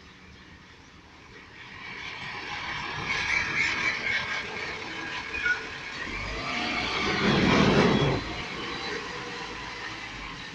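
Automated side-loader garbage truck driving past on a wet street. Its engine and the swish of its tyres on the wet road build up over a few seconds, are loudest as it passes about seven to eight seconds in, then fade as it pulls away.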